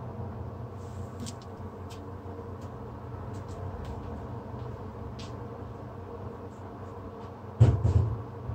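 Steady low electrical-sounding hum with a few faint ticks, then a loud dull knock with a brief rattle near the end.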